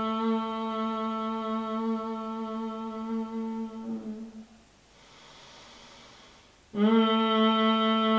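A woman humming one long, steady note through closed lips: the bhramari (bumblebee) breath of yoga, humming on the out-breath. The hum fades out about four seconds in, then comes a soft in-breath through the nose, and a second hum starts abruptly at the same pitch about a second and a half before the end.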